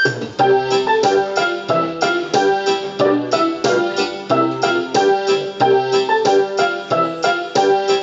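Casio LK-175 electronic keyboard playing a tune in a piano voice: a quick melody of several notes a second over a repeating bass line.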